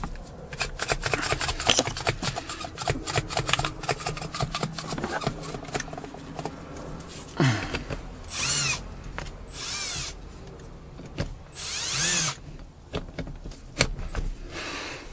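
A drill driving a Rolladeck windshield wire-out tool, winding in the cutting wire to cut through the windshield's urethane bead. The first half is a dense run of clicks; then the drill runs in three short bursts, its whine rising and falling each time.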